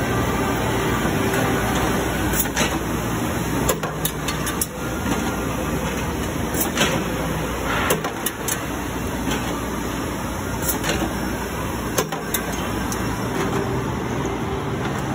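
Steady hum and noise of industrial machinery running, broken by about a dozen short, sharp clicks and metallic knocks at uneven intervals.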